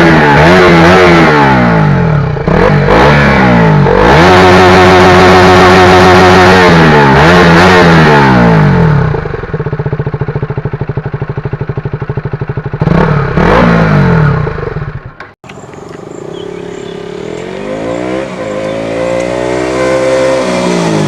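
KTM Duke 200's single-cylinder engine revving: held at high revs, dropping and picking back up twice, then settling to idle about nine seconds in with a quick blip. After a sudden brief break near the middle, a quieter, slower rev up and back down.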